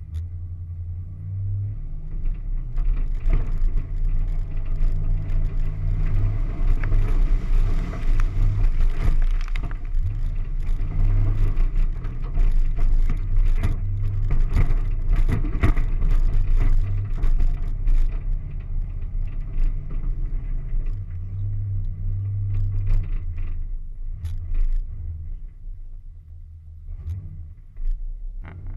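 Off-road vehicle engine running under load as it drives through mud, a steady low rumble with scattered knocks and scrapes from the ground. It swells through the middle and eases off near the end.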